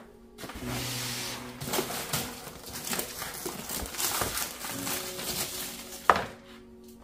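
Clear plastic packaging film crinkling and rustling as it is pulled off a plastic rolling egg dispenser, with small handling clicks. One sharp plastic knock about six seconds in.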